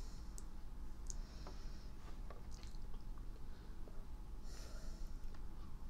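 Quiet room tone with a steady low hum, a few faint clicks and a soft breath about four and a half seconds in.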